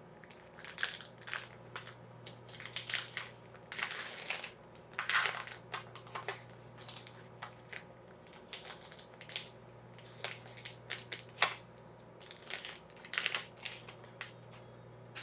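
Foil wrapper of a 2018 Bowman baseball card pack crinkling and tearing as it is opened by hand, in many short, irregular crackles, while the cards are slid out.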